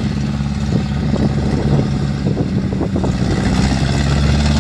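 Engine of a tracked rice-carrying machine loaded with sacks of grain, running steadily with a loud roar and some clattering from the machine.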